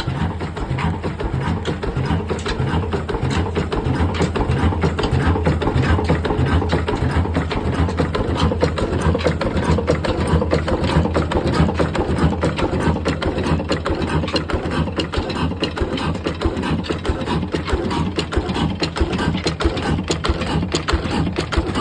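Old desi "black engine" diesel running steadily, with a fast, even clattering beat from its strokes.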